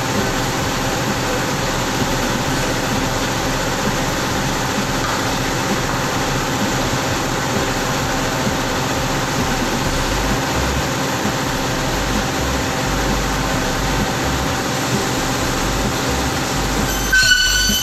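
A large circular saw for cutting aluminum runs with a steady mechanical drone, along with other shop machinery. Near the end the sound changes suddenly to a higher-pitched ringing whine.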